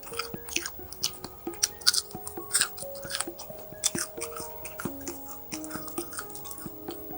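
Close-miked chewing of food, with many short, crisp crunching clicks, over background music of slow held notes.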